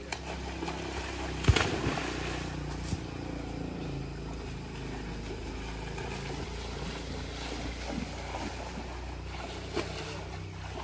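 Children splashing in waist-deep floodwater, with one sharp splash about a second and a half in and a smaller one near the end, over a steady low rumble.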